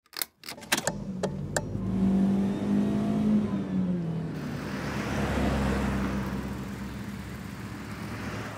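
A few sharp clicks of a seatbelt buckle latching, then an Audi A8's engine running, its pitch rising and falling briefly as it revs, with a low rumble after.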